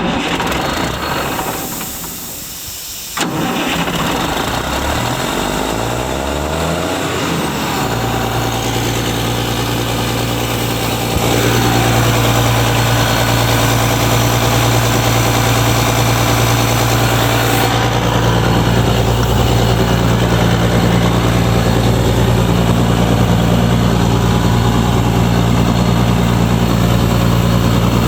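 Ingersoll 750 air compressor's engine starting up: a sudden loud start, the engine catching about three seconds in and running unevenly for a few seconds, then settling into a steady run that steps up in level about eleven seconds in.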